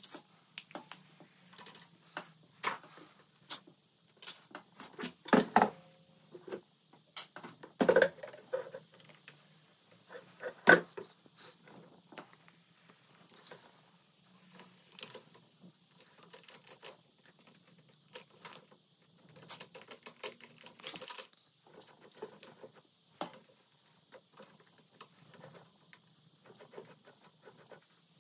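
Pfaff hobby 4260 sewing machine, covers off, being handled and turned over: irregular clicks and rattles of its plastic and metal parts, with three louder knocks about a third of the way in as it is shifted and set down.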